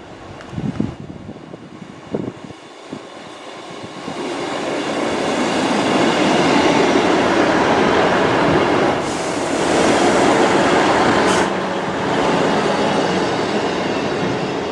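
Northern Class 158 diesel multiple unit running past the platform. Its engines and wheels on the rails grow louder from about four seconds in and stay loud as the carriages pass close. Two brief hisses come in the middle of the pass.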